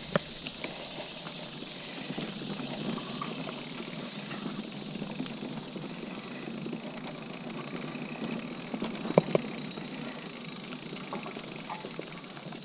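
Liv Hail mountain bike rolling along dirt singletrack: steady tyre noise on the trail with the bike rattling over bumps, and a pair of sharp knocks about nine seconds in.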